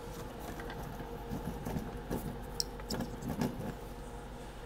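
Light handling noises: gloved hands moving an iPad Air logic board and a screen panel about on a work mat, a few soft knocks and rustles with one sharp click about halfway through, over a steady faint hum.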